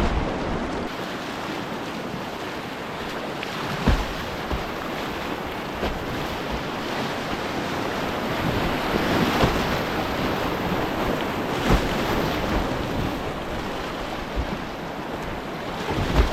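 Whitewater of a river rapid rushing, a steady noisy wash, with a few short low thumps now and then.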